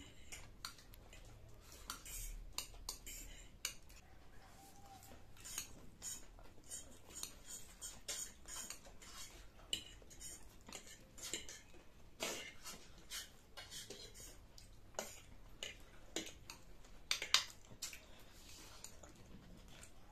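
Metal forks clicking and scraping against plates during a noodle meal, in many short irregular ticks, with occasional noodle slurping mixed in.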